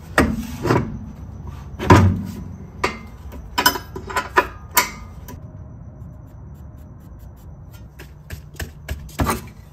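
Metal clinks and knocks of steel bolts, nuts and a wrench against the front suspension as a new ball joint is bolted in. About a dozen separate knocks, the loudest about two seconds in, then a quieter stretch and a few more clinks near the end.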